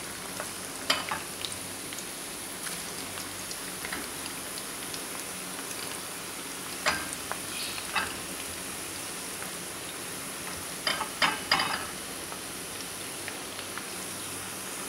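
Sliced onions sizzling steadily in hot oil in a frying pan, with a few sharp clicks and crackles, a cluster of them about eleven seconds in.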